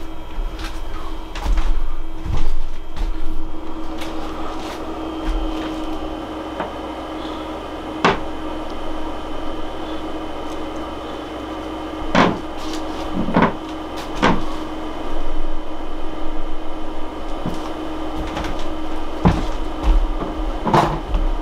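Steady hum of a small egg incubator running, with several sharp knocks and clatters as wooden queen-cell bars are set down in it.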